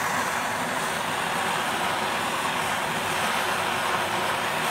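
Plumber's gas blowtorch burning with a steady hiss, its flame heating the lead loading on a car body panel to melt the lead back off.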